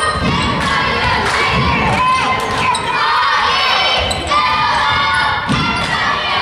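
Spectators shouting and cheering, many voices at once, with a basketball bouncing on a hardwood court a few times.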